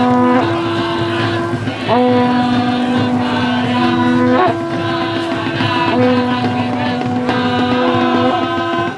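A long curved brass horn blown in loud held notes, switching back and forth between a lower and a higher pitch every second or two, with a short upward slide as some notes start.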